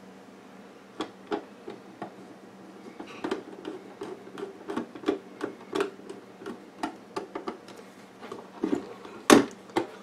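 Metal case and cover panel of an HP 461A amplifier being handled on a workbench: a run of small clicks and taps as the cover is fitted, then one louder knock near the end as the unit is turned over and set down.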